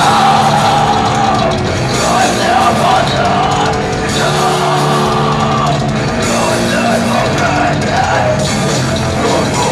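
A rock band playing loud and live, with drum kit and cymbals.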